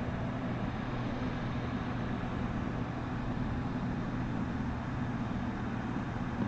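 Steady low mechanical hum with several held low tones, unchanging throughout.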